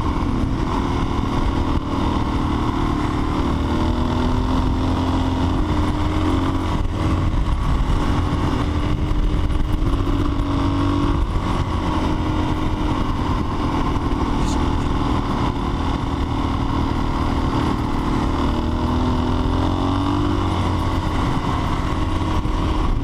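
Motorcycle engine running steadily on a muddy gravel road, its pitch dipping and rising slightly a few times, over a steady rush of wind and road noise.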